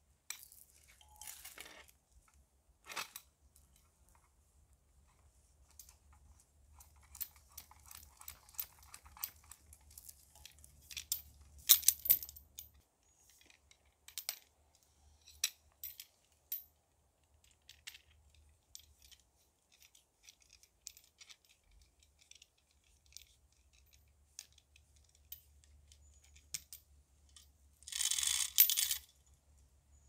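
Scattered small clicks, taps and rustles of things being handled, with a sharper cluster of clicks about twelve seconds in and a short burst of rustling near the end.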